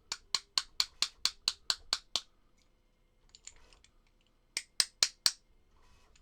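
A rapid series of sharp clicks or taps, about four a second, ten in a row, then after a pause four louder ones. They come from hand work on a disassembled air tool.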